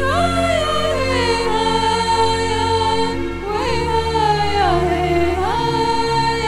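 Background music: a melody sliding between long held notes over a steady low drone.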